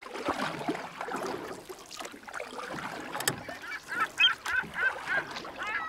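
Geese honking: a flock of overlapping calls, then a run of loud, evenly spaced honks over the last couple of seconds. One sharp click about halfway through.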